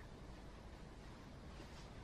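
Near silence: faint, steady room tone with a little hiss.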